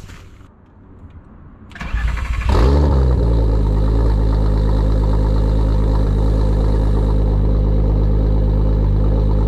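Volkswagen Corrado's VR6 engine cold-started: the starter cranks briefly about two seconds in, the engine catches with a short rev flare, then settles into a steady fast idle heard at the tailpipe.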